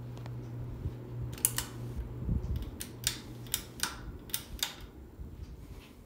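Harbor Breeze Ocracoke ceiling fan running on high with a steady low hum that fades out about two and a half seconds in. Through the middle comes a series of sharp clicks, mostly in close pairs.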